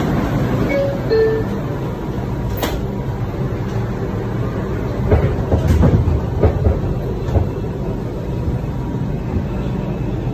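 Inside a New York City subway car on the move: a steady low rumble of the train running on the rails, with a few short squeaks about a second in and a run of knocks from the wheels and car body about halfway through.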